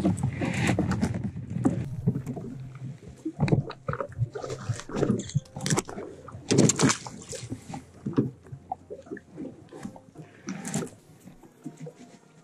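Small waves slapping and splashing against the hull of a drifting jet ski in irregular bursts, with a low rumble in the first few seconds that fades away.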